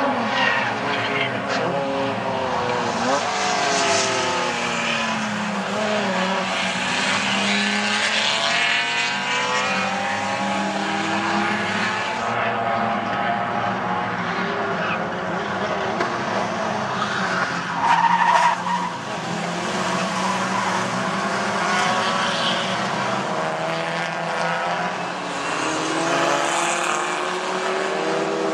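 Racing car engines revving up and down through the gears as cars pass, with tyres skidding and squealing as cars lose grip. A brief, loud squeal stands out about two-thirds of the way through.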